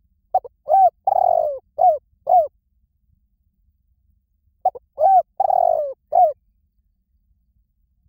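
Spotted dove cooing: two phrases of about five short, curving notes each, the second starting about four and a half seconds in.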